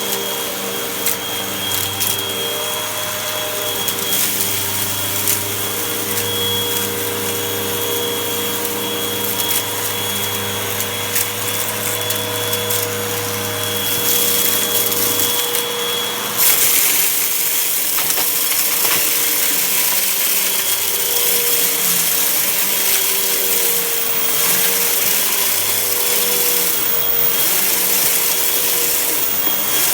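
Vacuum cleaner running steadily with a whining motor and a rush of air, scattered grit ticking and rattling as it sucks up dirt. About halfway through, the airflow grows louder and hissier.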